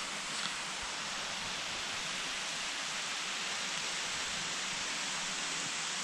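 Steady rushing of running water, an even hiss with no breaks.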